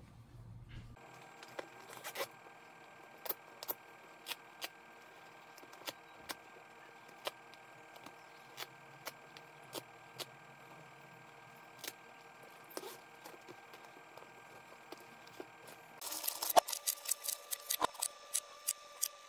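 Light sharp clicks and taps of toy pieces being handled and set down, about one a second, then a quicker run of clicks near the end as wooden dominoes are laid out, over a faint steady hum.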